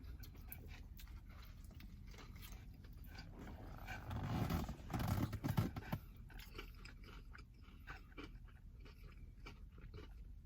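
A person chewing a mouthful of crispy fried chicken sandwich on soft glazed donut buns, with faint crunching and wet mouth clicks, louder for a couple of seconds about four seconds in.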